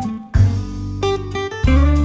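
Background music: a guitar tune over repeated deep bass notes.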